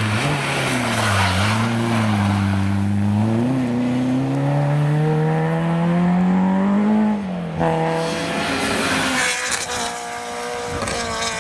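Peugeot 205 rally car's engine at full throttle, dipping briefly about a second in, then climbing steadily in pitch as it accelerates away. About three-quarters of the way through, after a cut, it gives way to another rally car's engine held at high revs.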